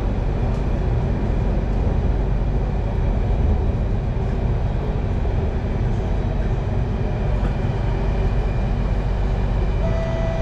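Singapore MRT Circle Line train running between stations, heard from inside the carriage by the doors: a steady rumble and rolling noise. Near the end, a steady tone sets in.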